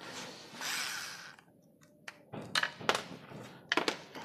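Daewoo 3.6 V cordless screwdriver running for about a second as it drives a screw, followed by several sharp clicks and knocks.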